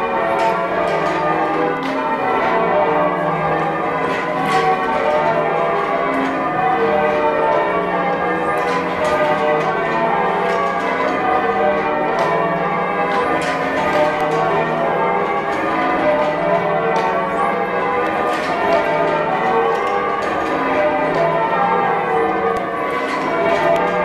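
Change ringing on a ring of church tower bells, mostly cast by Thomas Rudhall in 1773, with a tenor in D, heard from the ringing chamber below. The bells strike in continuous rounds of changes, overlapping and ringing on. The uploader calls the bells heavy going and oddstruck.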